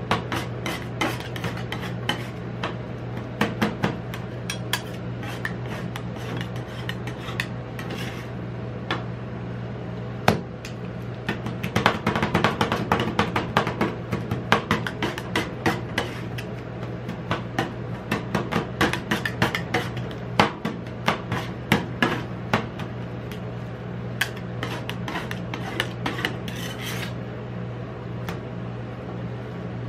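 Two steel spatulas chopping and scraping ice cream mix on a stainless steel cold plate: rapid clicking taps and scrapes of metal on metal, busiest around the middle and stopping near the end, over a steady low hum.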